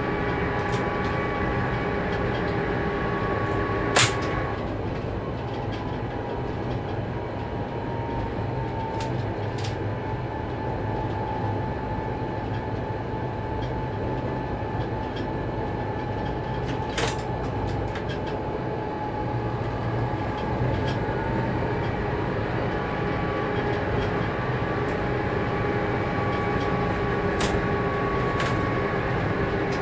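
Diesel locomotive heard from inside its cab while hauling a freight train: a steady low engine hum with a whine that slowly drifts in pitch, and a few sharp clicks, the loudest about four seconds in.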